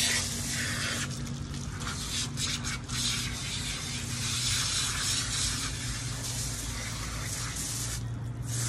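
Garden hose spraying water onto a wet dog's coat and splashing onto concrete, a steady hiss that eases and thins at times and drops away briefly near the end.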